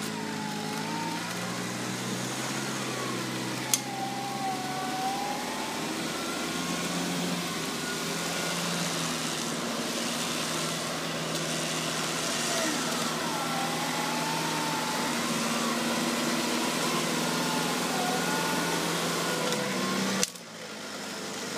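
A vehicle engine running steadily at low revs, with a thin whine above it that wavers up and down in pitch. There is one sharp click about four seconds in. The sound cuts off abruptly near the end, then comes back.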